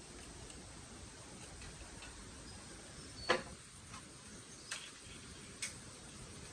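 Four short sharp clicks, the loudest about three seconds in, over a steady low background hiss.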